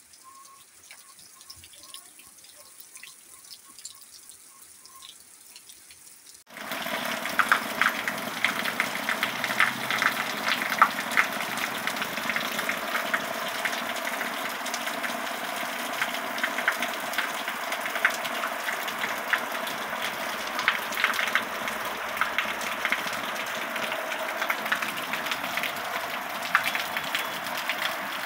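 Faint rain with a few scattered drop ticks and a row of short high pips. About six seconds in, heavy rain: a loud, dense patter of drops splashing, with water gushing off a roof onto concrete.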